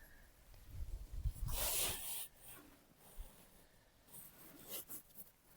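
Brief scratching and rustling from a piece of building material being handled, with a few low bumps about a second in.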